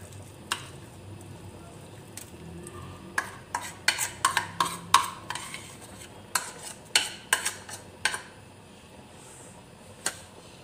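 Utensil clicking, tapping and scraping against a plate as mashed potato and chickpeas are scraped off into a pot of gravy. A few isolated taps at first, then a quick irregular run of sharp clicks and knocks through the middle, loudest about four to five seconds in, over a low steady hum.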